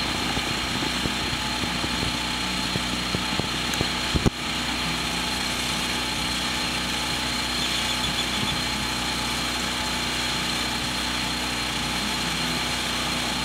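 Portable generator running steadily at an even pitch, charging batteries, with a single sharp click about four seconds in.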